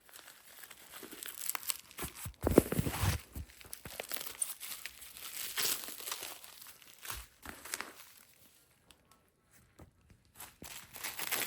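Packaging crinkling and rustling as it is handled and pulled open, with small clicks and knocks; a short lull about three-quarters through before the rustling resumes.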